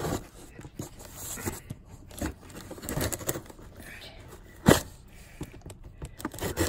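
Scissors slitting the packing tape along a cardboard box's seam, with scraping, crinkling tape and scattered clicks. There is one sharp knock nearly five seconds in.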